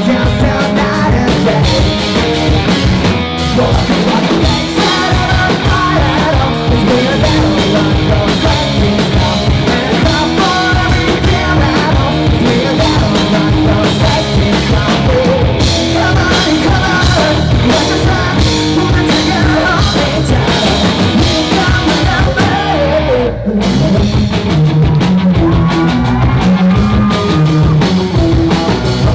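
Rock band playing live: distorted electric guitar and drum kit with a vocalist singing into a microphone. The band stops for a moment about 23 seconds in and comes straight back in.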